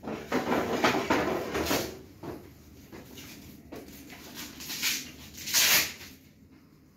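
Stretch fabric of a pop-up display backdrop rustling and scraping as it is pulled and pressed onto the frame. The handling is busy through the first two seconds, with a shorter, sharper rustle later on.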